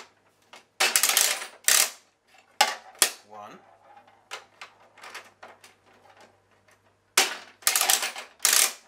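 Quarters being fed into and turned through the plastic coin mechanism of a Vendstar 3000 triple-head vending machine: clusters of sharp clicks and rattles, loudest about a second in and again near the end, with lighter clicks between. It is a test of a mechanism that keeps swallowing quarters, which end up stuck under it.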